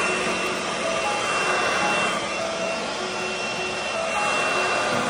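Corded electric leaf blower running steadily: a rush of blown air with a high, steady motor whine.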